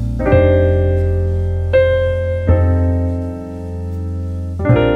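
Slow solo jazz piano playing sustained chords, four struck in turn and each left to ring and fade.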